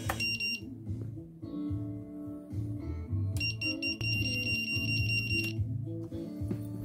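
Quadcopter's lost-model buzzer beeping high-pitched: a short beep just after the start, then a longer rapidly pulsing beep of about two seconds in the middle. Background music plays throughout.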